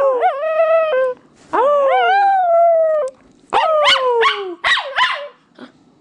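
Small dog howling in long, wavering calls: two drawn-out howls in the first three seconds, then a run of shorter calls that swoop up and down from about three and a half seconds in.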